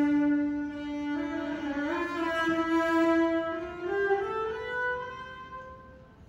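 Orchestra playing a slow passage of long held string notes. The line climbs by steps in the middle and then fades away near the end.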